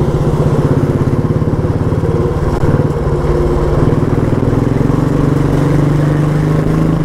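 Motorcycle engine running steadily at road speed, with a pulsing engine note whose pitch shifts slightly about three to four seconds in.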